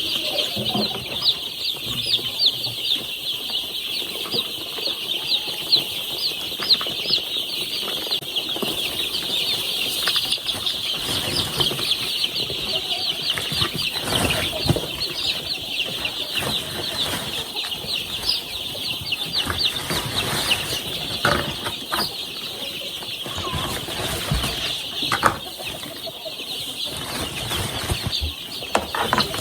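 A brood of young chicks peeping nonstop, many high cheeps overlapping, with a few short knocks and rustles in the middle and later on.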